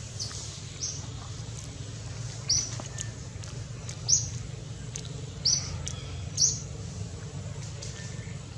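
About half a dozen short, high-pitched chirps from a small wild animal in the trees, spaced irregularly a second or so apart, over a low steady hum.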